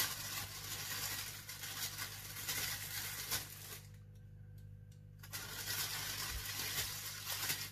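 Plastic bag rustling and crinkling as clay is taken out of it by hand, pausing for about a second and a half around four seconds in, then rustling again as the bag is handled once more.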